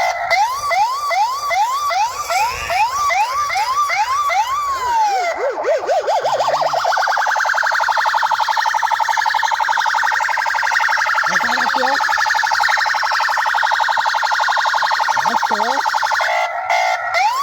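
Electronic siren cycling through its tones: quick rising yelps about two or three a second, then a slower rise and fall, then a long steady fast warble. Near the end it switches back to the quick yelps.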